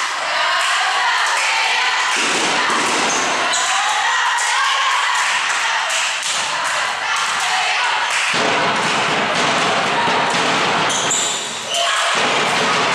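Volleyball rally in an echoing sports hall: the ball thudding as it is struck and hits the floor, over continual shouting voices.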